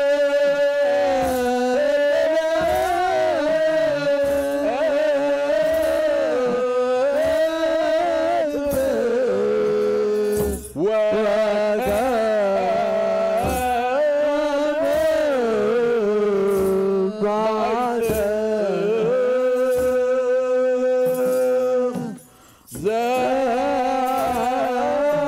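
Ethiopian Orthodox wereb: a group of men chanting a Ge'ez hymn in unison, with long held notes that slowly rise and fall, over a slow steady beat from kebero drums. The chant breaks off briefly twice between phrases.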